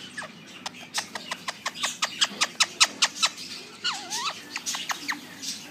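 Indian ringneck parrot giving a rapid run of short, sharp chirps, about five a second, each falling in pitch. About four seconds in comes one call that dips and rises in pitch, then a few more chirps.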